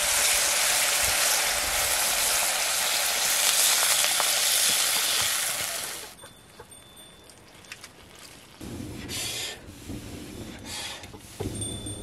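Potatoes and dried meat sizzling loudly in oil in a wok over a wood fire, cutting off abruptly about six seconds in. After that, only faint crackles and two short hisses.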